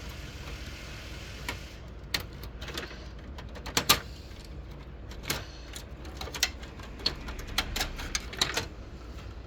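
Irregular plastic clicks and knocks from the front panel of a Canon LBP122dw laser printer being unclipped and worked free by hand. The loudest click comes about four seconds in, and a quick run of clicks follows near the end.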